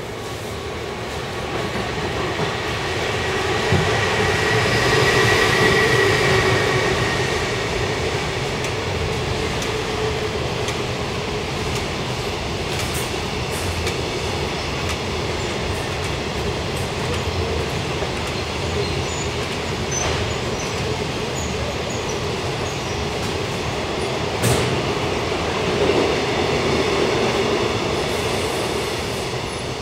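EF210 electric locomotive hauling a container freight train through the station without stopping, loudest as the locomotive goes by a few seconds in, with a steady tone over the rumble. Then the long string of container wagons rolls past with an even rumble and scattered clicks over the rails.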